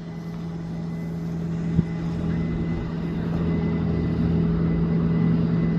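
An engine or motor running steadily at one pitch, slowly growing louder, with a single sharp click a little under two seconds in.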